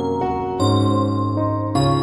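Soft instrumental background music: held, sustained notes, with a new chord sounding about half a second in and again near the end.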